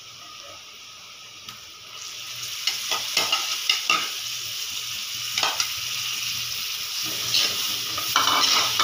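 Raw prawns tipped into hot oil and fried onion masala in a kadai, sizzling louder from about two seconds in. A metal spoon scrapes and clicks against the pan as they are stirred.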